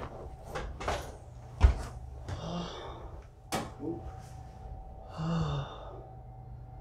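Spinal joints cracking under a chiropractor's adjustment: a string of sharp pops, the loudest with a heavy thump about a second and a half in and another sharp crack a couple of seconds later. Between the pops the patient lets out short breathy sounds.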